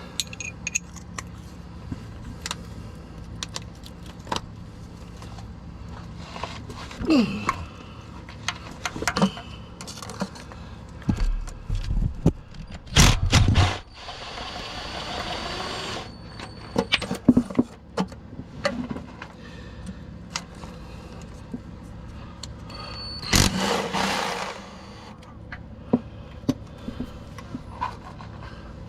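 Metal tools and parts clinking and knocking during work on a truck's starter, with a few louder knocks and a short stretch of steady rattling noise partway through.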